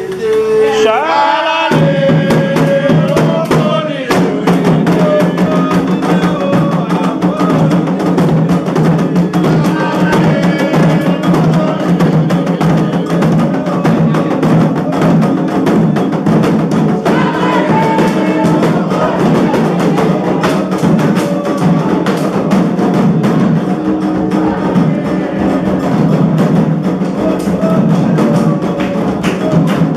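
Candomblé toque for Ògún: a voice sings alone briefly, then drums and percussion come in abruptly about two seconds in and keep up a steady, dense rhythm, with singing over it.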